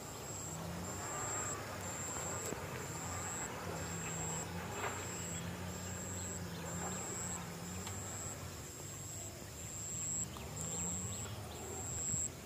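Insects chirping in a high, steady pulse a little more than once a second, over a faint engine hum that slowly rises and falls in pitch.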